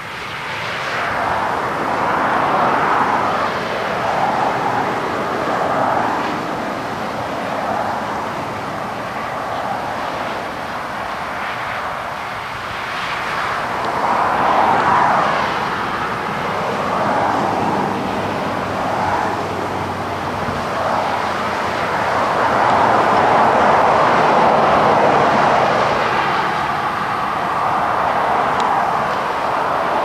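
Road traffic going by: a rushing noise that swells and fades as vehicles pass, several times over, with the longest and loudest pass a little after the middle.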